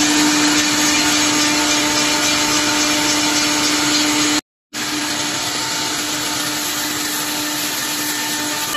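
Four-spindle CNC wooden bowl lathe running and cutting wood: a loud, steady hissing machine noise with a steady hum under it. The sound cuts out for a split second about halfway through, then goes on slightly quieter.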